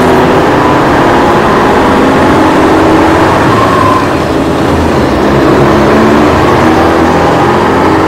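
A loud, steady motor drone with a shifting hum, dipping slightly about four seconds in.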